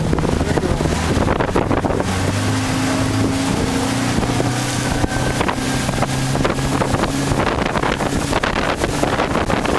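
Motorboat engine running steadily while the boat moves along, with wind buffeting the microphone and water noise around the hull.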